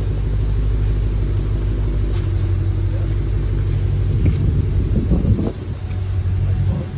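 A 2020 Ford Shelby GT500's supercharged 5.2-litre V8 running at low revs as the car creeps up onto a car-carrier trailer, with revs briefly rising and falling about four to five seconds in.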